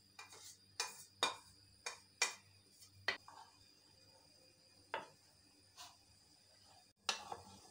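Metal spoon clinking against a bowl while custard powder is mixed into milk: scattered light clinks at irregular intervals.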